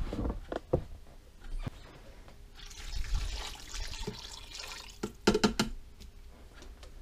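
Water poured from a glass jar into a stainless steel multicooker pot of sauce and ravioli, splashing for a couple of seconds, with a few knocks before and after the pour.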